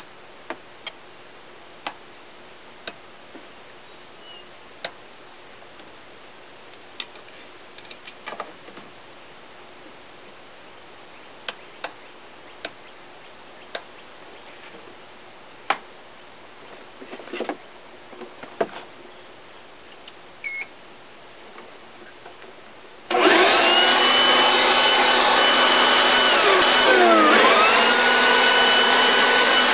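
Scattered clicks and knocks of cable plugs and connectors being handled, then about 23 seconds in an electric leaf blower switches on and runs loudly with a steady whine, its pitch dipping briefly and recovering near the end.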